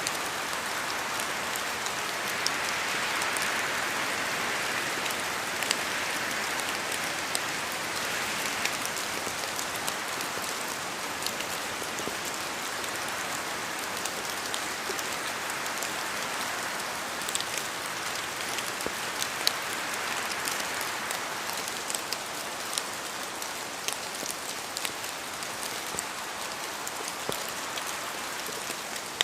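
Steady rain falling, with a continuous hiss and many distinct drops ticking sharply on a hard surface.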